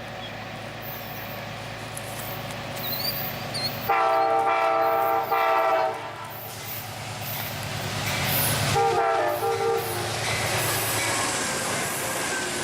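Amtrak passenger train's diesel locomotive approaching with a steady engine rumble, sounding its chord horn: a long and a shorter blast about four seconds in, then two short blasts near nine seconds, followed by wheel and rail noise as the train comes by.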